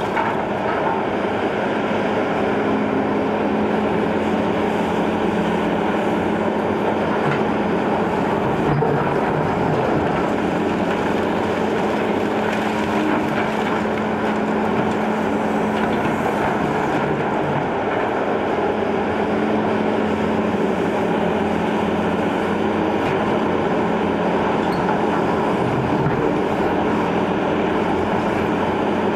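Liebherr 944 C hydraulic excavator's diesel engine running steadily under load with the hydraulics working, while the bucket rakes and breaks brick rubble with irregular crunching and clattering of masonry.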